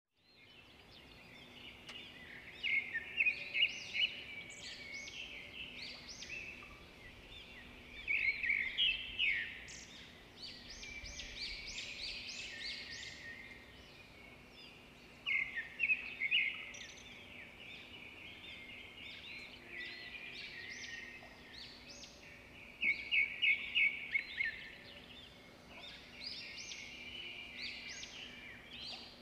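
Birds chirping and calling, with four louder bursts of rapid repeated notes, over a faint steady low hum.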